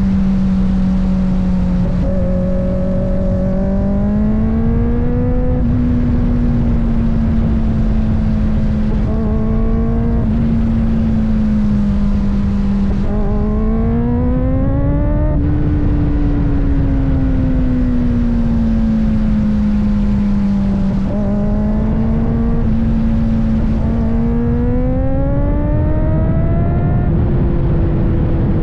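Kawasaki ZX-4RR's 399 cc inline-four engine running steadily under way. Its pitch climbs on the throttle about three times and eases back each time.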